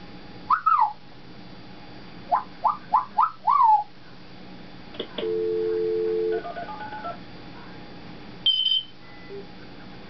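African grey parrot whistling: a falling whistle, then a run of four quick whistles that slide up and down. About halfway through comes a steady electronic-sounding beep lasting about a second, followed by a few soft tones and a short high chirp near the end.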